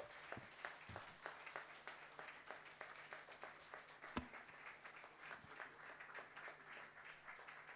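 Audience applauding faintly, a dense patter of many hands clapping.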